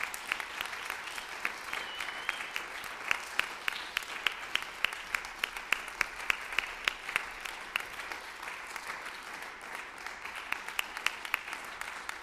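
Audience applauding: many separate hand claps, loudest in the middle and thinning out in the last few seconds.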